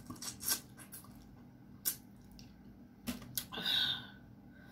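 Eating mouth sounds close to the microphone: a few wet lip smacks and chewing clicks, then a short breathy hiss about three and a half seconds in.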